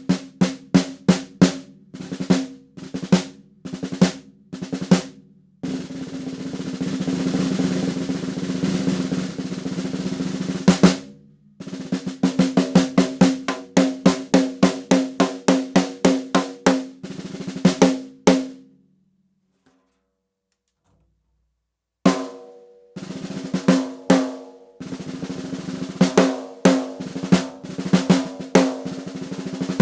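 A 1980s Saema Hexa drum kit played in a sound check: single hits, then a steady roll on the snare drum lasting about five seconds, then runs of quick strokes. A pause of about three seconds follows, then more rapid hits on drums that ring on at a steady pitch.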